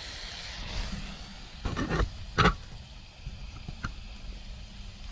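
A rocket stove's wood fire burning with a low rumble and a hiss of hamburgers sizzling in the pan. A few sharp cracks come through, the loudest about two and a half seconds in.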